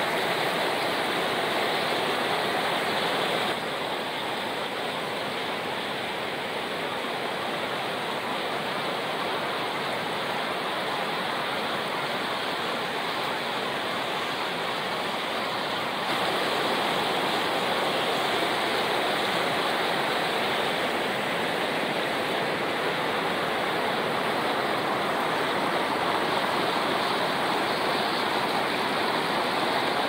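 Water rushing over rock slabs in shallow cascades and rapids: a steady, even rush of white water. Its level and tone shift slightly at shot changes about 3.5 and 16 seconds in.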